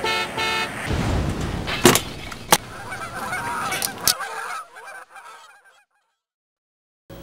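Two short steady honks, then about two seconds in two sharp knocks half a second apart over a low rumbling noise.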